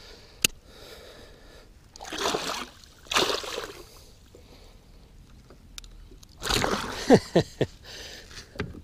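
Northern pike thrashing in the water of a landing net as it is unhooked, in three bouts of splashing: about two seconds in, just after three seconds, and a longer, louder bout near seven seconds. A single sharp click comes about half a second in.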